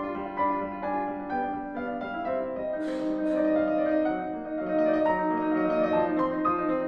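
Background piano music: a gentle melody of held and overlapping notes.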